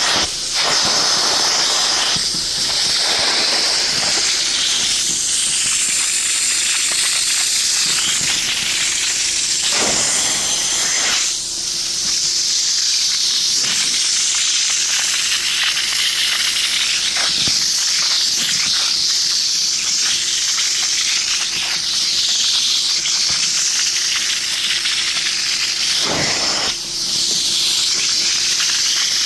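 Upholstery cleaning machine's hand tool spraying and sucking through the fabric of a sectional sofa: a steady loud hiss over a constant motor hum, dipping briefly twice as the tool lifts.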